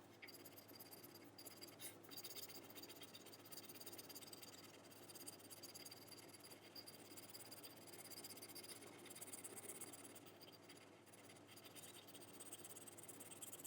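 Faint, continuous scratching of a crayon being rubbed back and forth across paper while colouring in.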